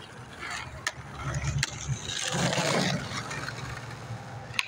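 Skateboard rolling on rough pavement with a low rumble and a few sharp clacks. About two seconds in comes a loud scraping rush lasting about a second.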